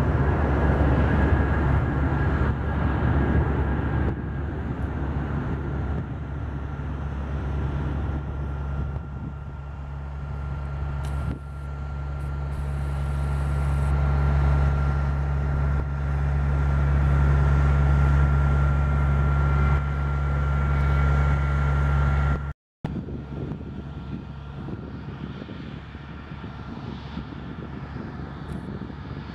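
Jet engines of an Airbus A319 rolling along the runway: a steady whine over a low rumble, loudest in the first few seconds. About three-quarters of the way through, the sound cuts out for a moment and comes back quieter, with a taxiing A319's engines running close by.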